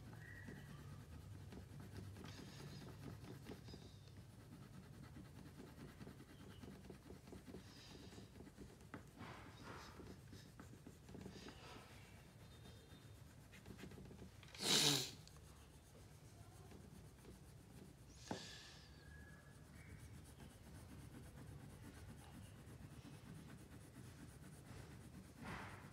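Faint scratching and rubbing of a wax crayon shading across paper, in irregular strokes. One short, much louder bump about halfway through.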